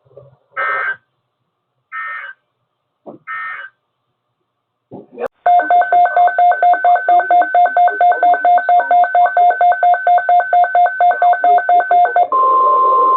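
Emergency Alert System weather-radio tones between two broadcast messages. First come three short bursts of data-like noise, the end-of-message code closing the previous alert. Then about seven seconds of rapid electronic beeping, four or five beeps a second, cut over near the end by a steady high alarm tone announcing the next alert.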